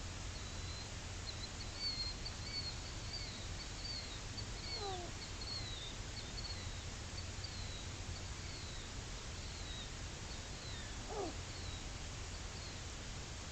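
Steady background hiss with a long run of faint, high bird chirps, about two a second, each dipping slightly in pitch. Two short falling animal cries come about 5 and 11 seconds in, the second the louder.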